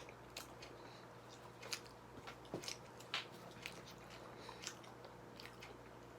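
Faint, close-miked mouth sounds of someone chewing takoyaki: scattered wet smacks and clicks at irregular intervals over a low steady hum.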